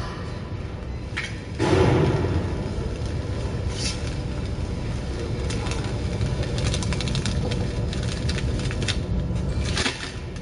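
Horizontal pillow (flow-wrap) packaging machine starting up about one and a half seconds in and running steadily as the film feeds through, with a low drone and fine rapid clicking. It quietens again shortly before the end.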